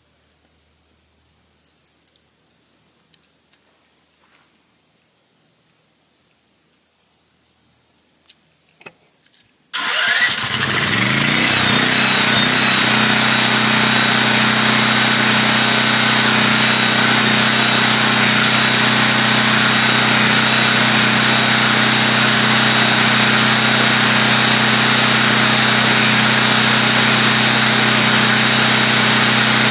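Westinghouse 13,500-watt portable generator starting about ten seconds in, its pitch rising briefly before it settles into a loud, steady run. Before it starts there is only a faint chirping of insects.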